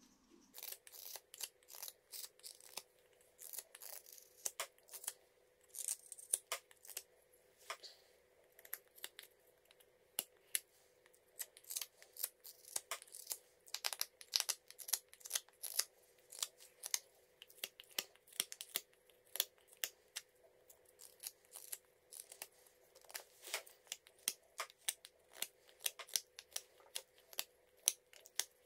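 Carving knife whittling a wooden handle by hand: a quick, irregular run of short, crisp slicing cuts, several a second.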